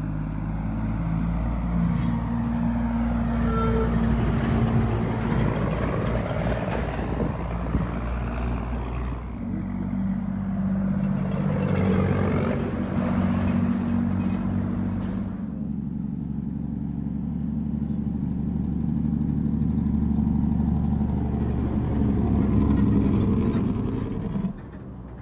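Heavy truck's diesel engine running steadily, its engine note changing in steps about ten and fifteen seconds in.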